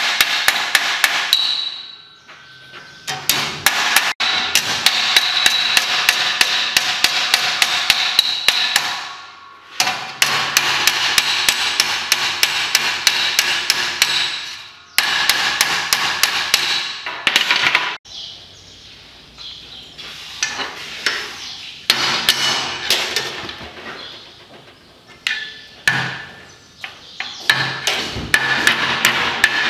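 Steel body hammer striking a strip of sheet steel laid on a steel workbench, shaping it into a panel piece. The blows come in quick, ringing metallic runs broken by short pauses, with a stretch of lighter, sparser taps past the middle.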